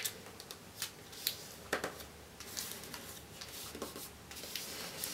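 A sheet of paper being folded and creased by hand: faint rustling with a few short, sharp crackles.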